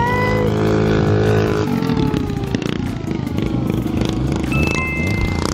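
Small 225cc drift-kart engine revving high, its pitch climbing and holding, then dropping away about two seconds in as the kart runs off down the track, leaving a rougher, quieter engine note.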